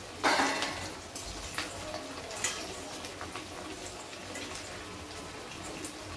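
Oil sizzling steadily in an iron kadhai as potato-semolina balls deep-fry, with a wire-mesh skimmer clinking and scraping against the pan as the balls are turned. A louder rush of sizzle comes near the start and fades within about half a second.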